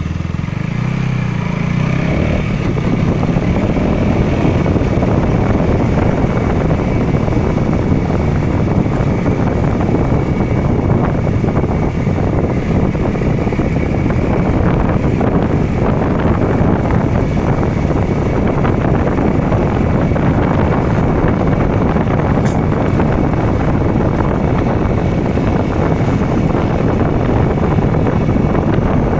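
KTM Duke motorcycle's single-cylinder engine pulling up through the revs over the first couple of seconds, then running steadily at cruising speed, with wind rush and road noise.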